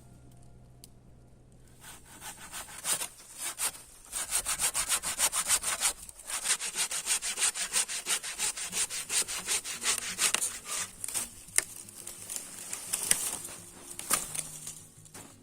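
Hand saw cutting through wood in quick, even back-and-forth strokes, about three a second, starting a couple of seconds in and thinning out near the end.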